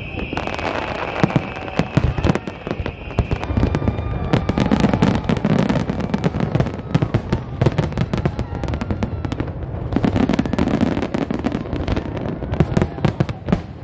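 Large aerial fireworks display: a dense, continuous run of shell bursts with bangs and crackling, and a steady high tone over the first three seconds or so.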